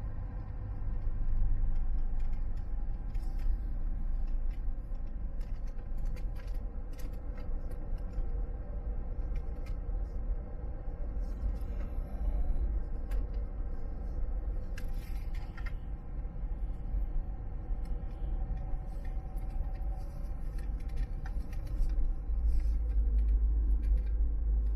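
Car driving on a hilly road: a steady low engine and road rumble that grows louder near the end, with scattered light clicks and rattles.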